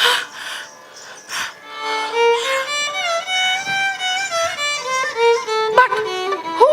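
Violin playing a slow melody with sliding, ornamented notes, as accompaniment to Bharatanatyam dance. A sharp strike opens it, with another about a second and a half in.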